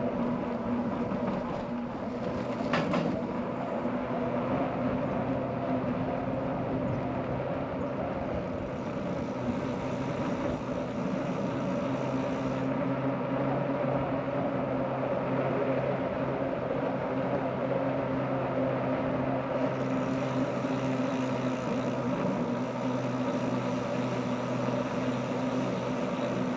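Steady hum and rushing noise of riding a bicycle along a road. A high hiss comes in about eight seconds in, stops near twelve seconds, and returns near twenty seconds.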